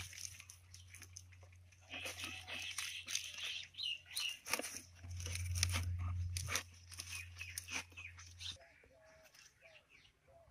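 Leaves crinkling and crunching as hands pull and work the leaf plug out of the end of a tube fish trap: dense, irregular crackles and rustles. A steady low hum sits under it and stops about two-thirds of the way through.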